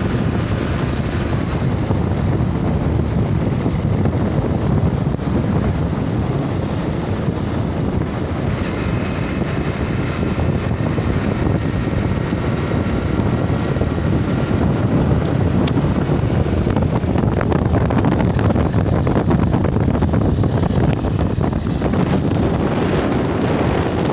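Motorcycle engines running steadily, with wind buffeting the microphone.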